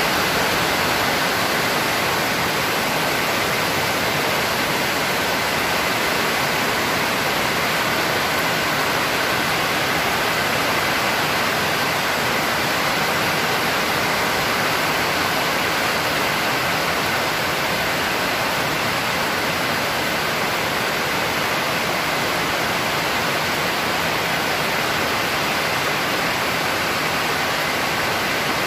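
Heavy rain pouring down steadily, an even rushing hiss with no let-up.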